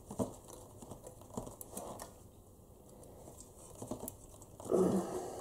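Faint scattered clicks and taps of hands and a tool working on a diecast model car body, pressing the tail light's pins out from behind, with a brief louder handling rub near the end.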